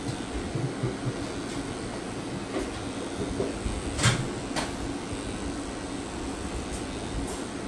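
A steady mechanical hum, like a small motor running, with a few sharp clicks; the loudest click comes about four seconds in, and another follows about half a second later.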